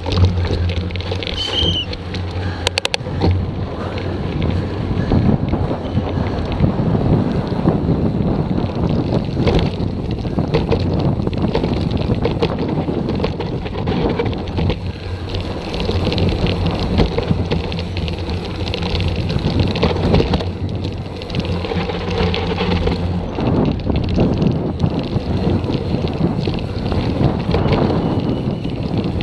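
Mountain bike descending a dirt and gravel trail at speed, heard from its handlebars: tyres rolling and crunching over the ground, the bike clattering over bumps, with wind rushing over the microphone.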